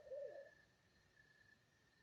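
Unidentified animal calling at night: a rapid run of short hooting calls, about three a second, that ends about half a second in with one longer, falling call. A faint, steady high tone continues underneath.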